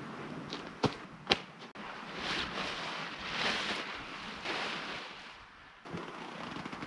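A tent being pitched: two sharp clicks about a second in, then rustling swishes of tent fabric, about one a second.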